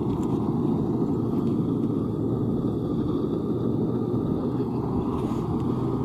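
Steady low engine rumble of a combine harvester running while it harvests rice.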